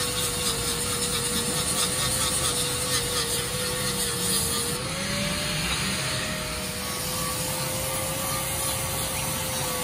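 Handheld electric angle grinder running under load, its disc grinding rusty steel and throwing sparks. A steady motor whine sags slightly about four seconds in and picks up again a second later.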